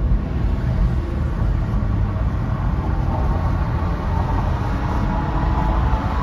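Car driving on a multi-lane road, heard from inside the cabin: a steady low rumble of tyres and engine.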